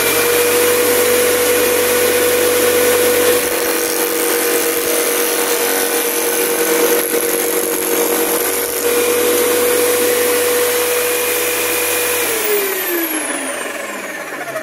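Corded electric drill driving a nibbler punch, its motor whining at a steady speed while the punch chops a slot through thin aluminium sheet. About twelve seconds in it is switched off, and the whine falls in pitch as the motor spins down.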